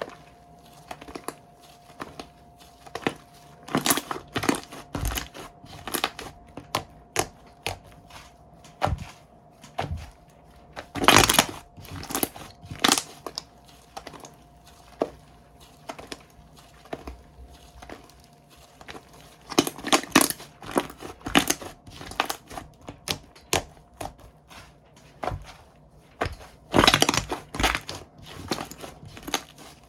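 Slime being squeezed, pressed and stretched by hand, giving a run of sharp clicks and pops with several louder crackly bursts.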